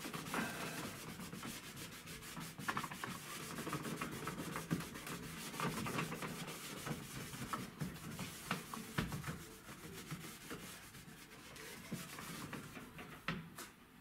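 Cloth rubbing briskly over the plastic front panel of an LG washing machine in quick scrubbing strokes, wiping off the yellowed surface layer softened with Dimexide. The rubbing gets quieter in the last few seconds.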